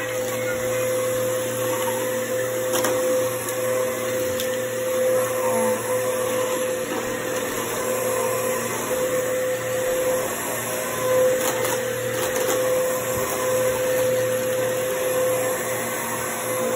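Bissell bagless upright vacuum running steadily over a rug, its motor giving a constant whine, with a few sharp clicks as it goes.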